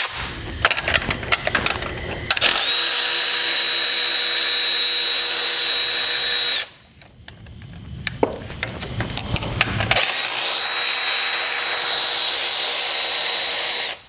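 Milwaukee cordless ratchet running the alternator's mounting nuts off. A few clicks of the socket being fitted come first, then two steady whirring runs of about four seconds each, one starting a couple of seconds in and the other about ten seconds in, each stopping abruptly.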